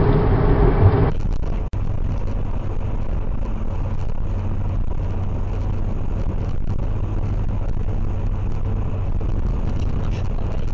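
Steady in-cabin drone of a car driving at speed, a low engine hum under even road and tyre noise. A louder stretch from the previous clip cuts off about a second and a half in.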